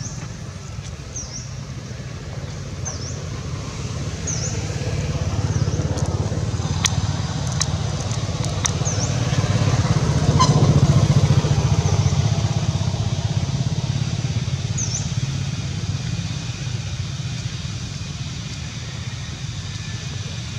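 A motorcycle passing by: a low engine drone that grows louder to a peak about halfway through, then fades away. A short high chirp repeats now and then over it.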